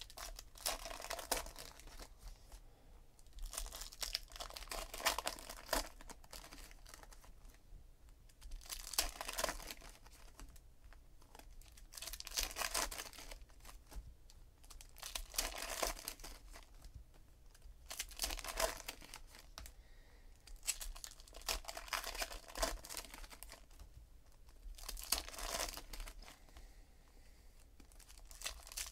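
Wrappers of 2017 Panini Donruss Optic Baseball card packs crinkling and tearing as the packs are ripped open one after another, with cards shuffled in between. The bursts of crinkling come about every three seconds.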